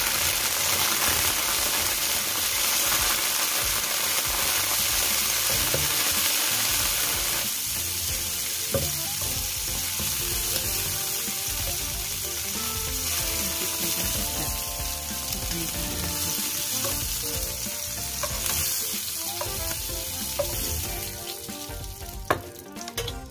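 Peeled shrimp sizzling as they fry in hot oil in a nonstick wok, stirred with a spatula. The sizzle is loudest for about the first seven seconds, then goes on softer.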